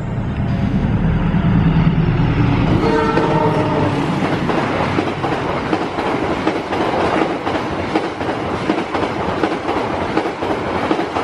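Diesel-hauled passenger train passing at speed: a heavy low engine rumble, a brief horn blast about three seconds in, then the coaches rushing by with wheels clattering over the rail joints.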